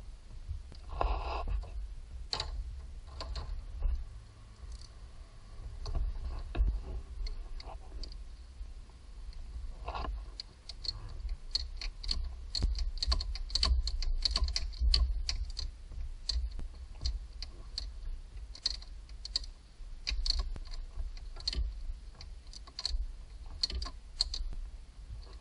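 Irregular small clicks, taps and clatters of hands and tools on metal and plastic engine parts while working in a car's engine bay, busiest about halfway through, over a low rumble.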